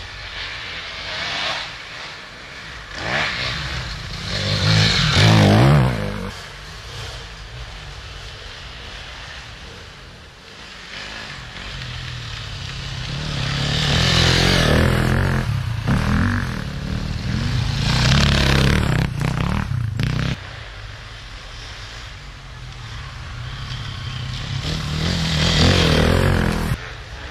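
Enduro motorcycles passing one after another, about four of them. Each engine grows louder as it nears and fades as it goes, over a steady background of engines further off.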